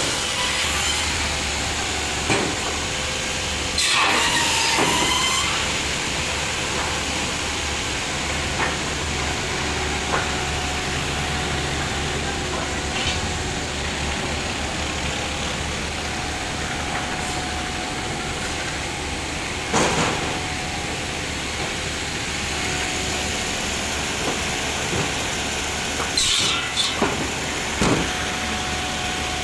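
Sawmill machinery running steadily with a low hum, broken by occasional sharp knocks of wood and metal and a brief squeal about four seconds in.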